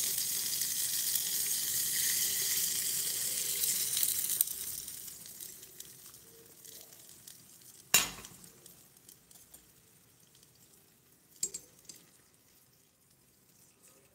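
Miniature steel pot of spiced liquid simmering over a tiny burner, giving a steady bubbling hiss that fades away after about four seconds. A sharp click comes about eight seconds in, and a couple of lighter clicks follow a few seconds later.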